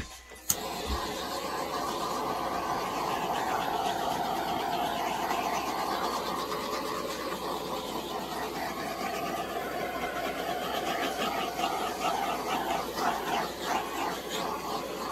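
A handheld heat tool clicks on about half a second in and then runs with a steady rushing noise. It is being passed over wet acrylic pour paint to pop the air bubbles.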